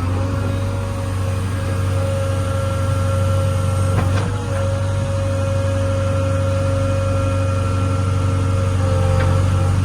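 JCB 3DX backhoe loader's diesel engine running steadily under work: a loud low drone with a steady whine above it. There are two faint knocks, about four seconds in and near the end.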